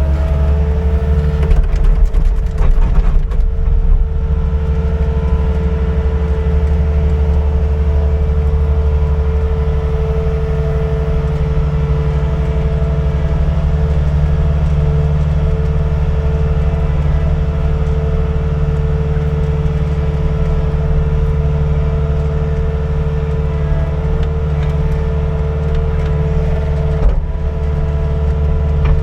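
A heavy engine running steadily at a constant pitch, with a burst of clattering about two to four seconds in.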